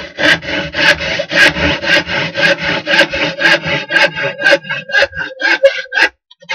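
A hand tool scraping back and forth on a wooden panel in quick strokes, about four a second, the panel ringing with a steady tone under the strokes. The strokes stop about six seconds in.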